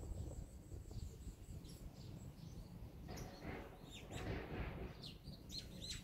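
Small songbirds giving short, high chirps, scattered and thickening over the second half, over a faint low background rumble.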